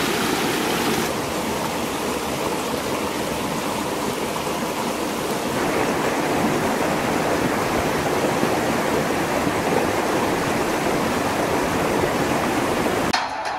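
Shallow rocky stream rushing over stones and small rapids: a steady rush of water, shifting slightly in tone about a second in and again near the middle.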